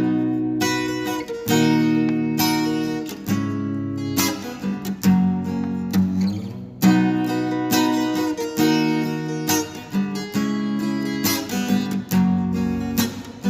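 Instrumental intro of a Brazilian sertanejo-style song: an acoustic guitar strumming chords in a steady rhythm.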